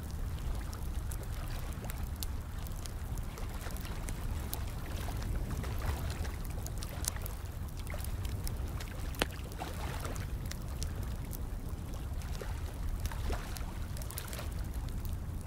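Running water, pouring and trickling over a steady low rumble, mixed with the sharp, irregular pops and crackles of a burning fire.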